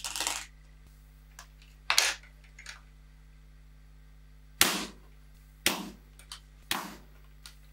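Weihrauch HW95 spring-piston break-barrel air rifle in .25 calibre being fired: a series of sharp shots, the first two about two seconds apart and the last three in quicker succession about a second apart.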